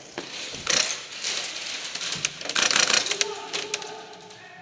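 Airsoft electric gun firing two short bursts of rapid clicks: a brief one a little under a second in and a longer one around two and a half seconds in.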